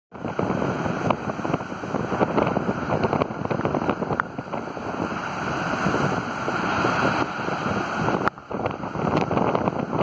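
Strong wind buffeting the microphone in a loud, fluttering rumble, with heavy storm surf crashing and churning against coastal rocks underneath. The wind briefly drops a little after eight seconds.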